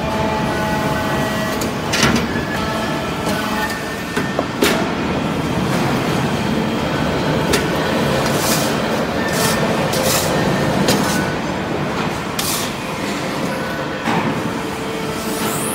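Vertical hydraulic briquetting press for cast-iron chips running: a steady loud hydraulic power-unit noise, with irregular sharp metallic knocks as the ram presses and ejects iron-chip briquettes.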